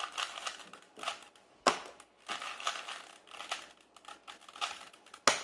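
Plastic Rubik's cube being twisted quickly by hand, its layers clicking and rattling in short runs, with a sharper clack a little under two seconds in and another near the end.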